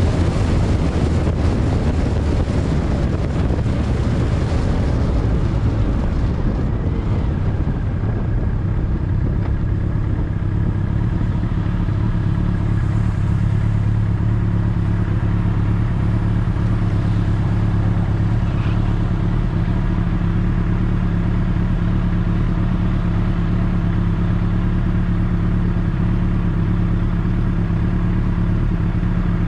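Motorcycle engine running steadily, with wind noise on the microphone dying away over the first several seconds and leaving an even engine hum.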